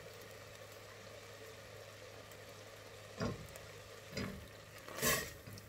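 Thick, reduced blueberry filling simmering in a stainless steel pot, with a steady low hum underneath. A silicone spatula stirs and scrapes against the pot in three short strokes: about three seconds in, a second later, and near the end.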